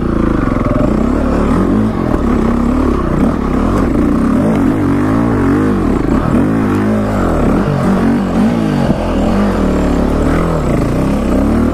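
Dirt bike engine revving hard under load as the bike climbs a steep, rough dirt hill, its pitch rising and falling again and again as the throttle is worked.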